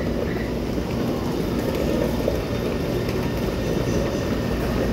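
Steady rumble and hum of a Taipei Metro C301 train standing at the platform with its doors open, under a faint murmur of passengers.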